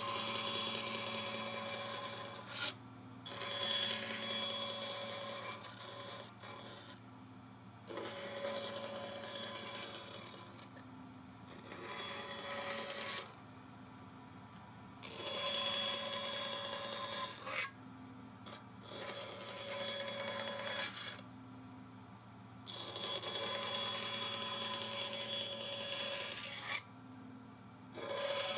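A small power tool cutting or abrading wood in repeated passes of a few seconds each: a steady motor whine with a rasping grind, broken by short sudden gaps.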